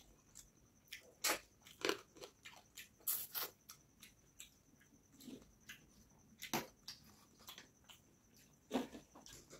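Close-miked wet chewing and lip smacks of a person eating rice and fish curry by hand, with sharp mouth clicks at irregular intervals.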